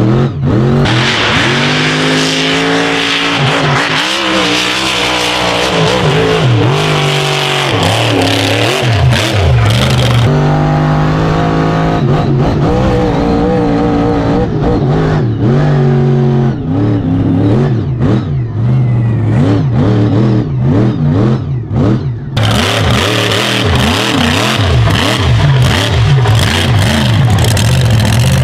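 The 1520-horsepower King Sling mega truck's engine revving hard and falling off again and again as the truck is driven at full effort over a dirt track.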